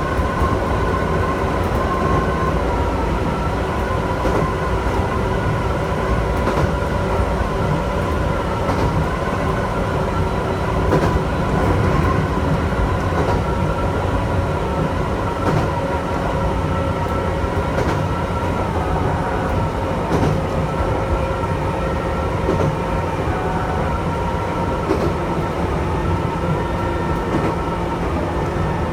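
Chichibu Railway electric train running along the line, heard from the front of the train: a steady rumble of wheels on rail with a constant whine over it and occasional clacks over rail joints.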